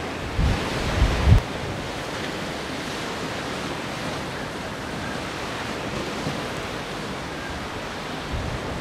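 Wind over a choppy sea with waves washing steadily. Gusts buffet the microphone with low rumbles about a second in and again near the end.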